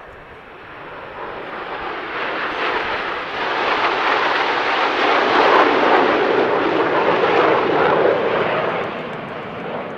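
Jet noise from the Frecce Tricolori's Aermacchi MB-339s, single Rolls-Royce Viper turbojets, passing by. The roar builds over the first few seconds, is loudest in the middle, and fades near the end.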